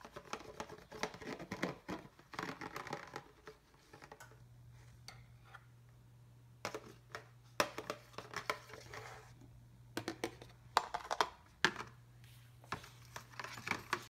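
Metal spoon stirring a soapy water mixture in a plastic container, with irregular clinks, taps and scrapes against the plastic. A low steady hum comes in about four seconds in.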